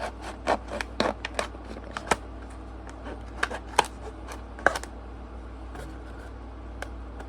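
Stiff plastic blister packaging being cut around, giving irregular sharp crackles, snaps and clicks in two bunches, with a few stray clicks near the end.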